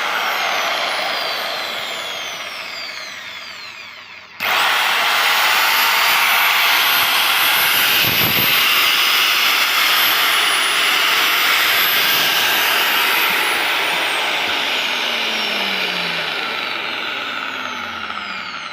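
DCA 1900 W electric chainsaw spinning down with falling pitch, then switched on abruptly about four seconds in and running at full speed with a high whine. Near the end it is released and spins down again, the pitch falling as it fades.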